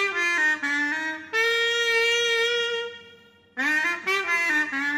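The smallest of a set of three heping guan, Chinese single-reed pipes with a saxophone-like tone, plays a short melody: a run of quick notes leading into a long held note. After a short pause the same phrase starts again.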